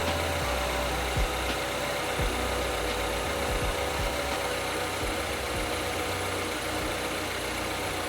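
Mini Cooper R56's N14 1.6-litre turbocharged four-cylinder engine idling steadily, with a few low thumps.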